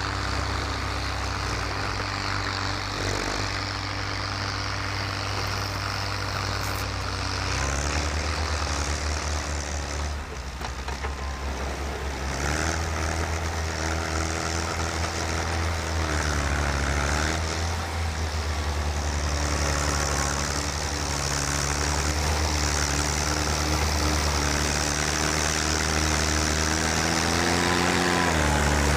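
Kässbohrer PistenBully snowcat's diesel engine running steadily while it works, its engine speed shifting now and then, with a brief dip about halfway and a drop near the end.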